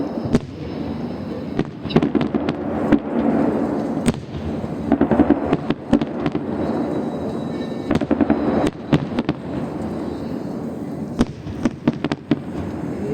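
A fireworks salute: repeated sharp bangs and crackling, some coming in quick clusters, over a continuous rumble.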